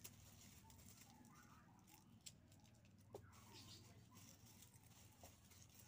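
Near silence: faint background hum with a few soft clicks.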